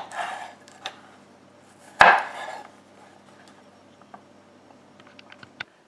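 Chef's knife knocking on a wooden cutting board while slicing zucchini into sticks: one sharp knock about two seconds in, and a few light clicks near the end.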